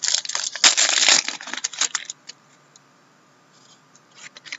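Crinkling and tearing of a trading-card pack wrapper being opened by hand: a dense crackle for about two seconds, then faint rustling of cards near the end.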